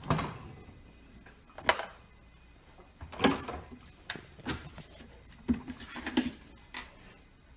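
Husky puppy climbing into an open refrigerator: scattered knocks and bumps against the fridge's plastic shelf and door, with a few short vocal sounds from the puppy.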